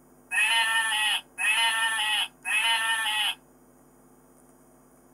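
A sheep bleating three times in a row, each bleat about a second long.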